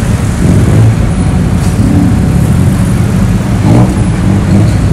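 Loud, steady rumble of street traffic, with vehicle engines running close by.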